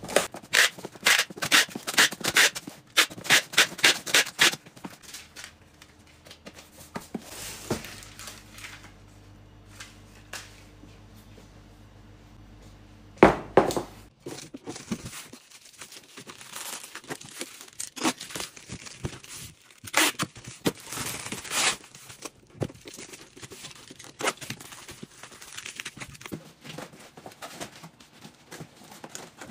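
A parcel being packed by hand into a cardboard box. There is a quick run of tearing, crinkling noises in the first few seconds, one loud knock a little before the middle, and scattered rustles and taps after it.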